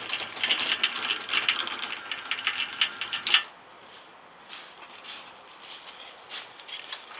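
An old refrigerator's compressor motor clattering with a fast mechanical rattle while powered from a 220-volt socket, a unit the owner reckons is built for 127 volts. It stops with a sharp click about three seconds in.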